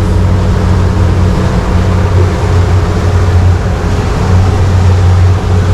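Motorboat running at cruising speed: a steady low engine hum under a constant rush of noise from wind and water.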